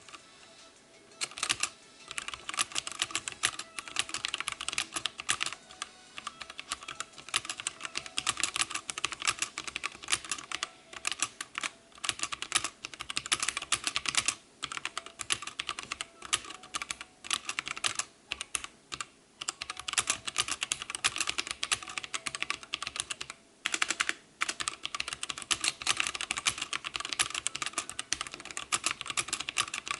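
Fast, continuous typing on a wireless mechanical keyboard with brown switches. The keys clack in quick runs, with a few brief pauses.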